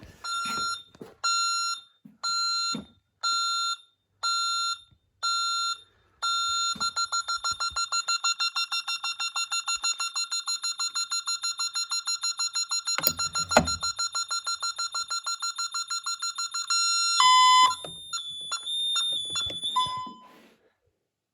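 Honeywell/Ademco Vista 10P security alarm beeping after a motion sensor is tripped: at first a steady electronic beep about three times every two seconds, then from about six seconds in a fast, continuous pulsed beeping. A sharp knock comes partway through, and near the end a few beeps at other pitches are heard before it all stops.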